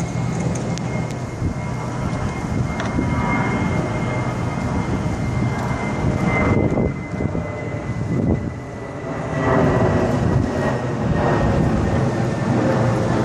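Steady low rumble of a moving road vehicle and traffic, with a faint high whine that drifts slightly lower. The noise dips briefly a little past the middle, then picks up again.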